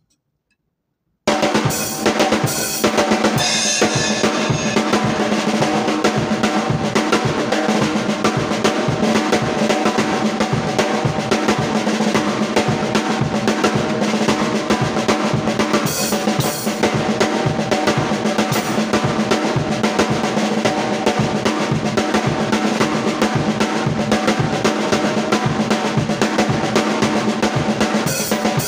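Acoustic drum kit playing a fast, continuous Seben groove with the flam-accent rudiment worked in as a fill: a flam on the first tom, then right-left on the snare. The playing starts about a second in.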